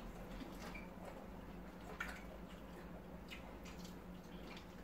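Faint eating sounds: a few soft, wet clicks and smacks of mouths chewing and fingers picking at rice and snail.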